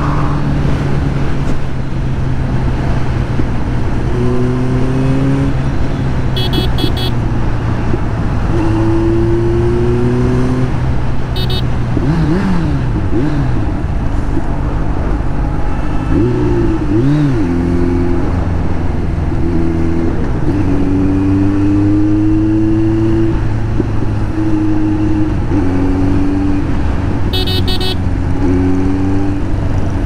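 Kawasaki Z900's inline-four engine running through an SC Project exhaust while riding, its note falling as the bike slows, with two brief rev rises and falls about twelve and seventeen seconds in. Vehicle horns sound several times in short toots.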